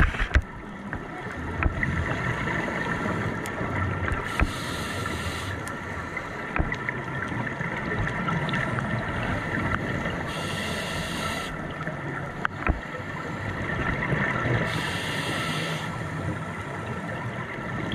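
Underwater sound on a scuba dive: a steady hum and hiss, broken three times, about every five seconds, by a second-long rush of bubbling hiss from a diver's exhaled regulator bubbles.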